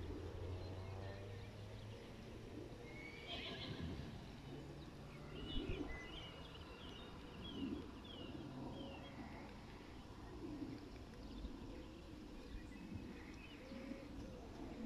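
A horse whinnying faintly: a short call about three seconds in, then a longer run of falling, quavering notes from about five to nine seconds.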